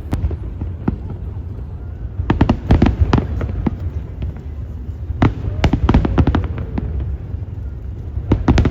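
Fireworks display: clusters of sharp bangs and crackles about two seconds in, again about five seconds in, and near the end, over a steady low rumble.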